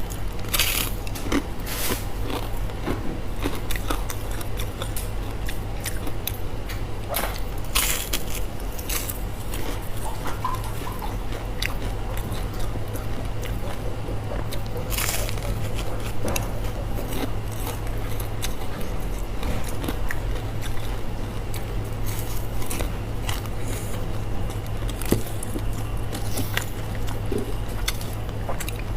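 Close-up crunching, biting and chewing of crispy fried pork intestines, with irregular crunches throughout over a steady low hum.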